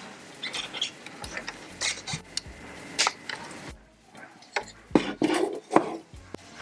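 A small hard-cased USB-C docking station being handled and set down on a desk. It gives a scatter of sharp clicks and knocks, busier and louder in the last two seconds.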